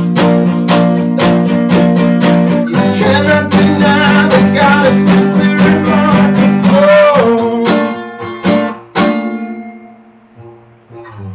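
Acoustic guitar strummed in a steady rhythm under a man's singing. About nine seconds in the strumming stops and the last chord rings out, then softer picking starts again near the end.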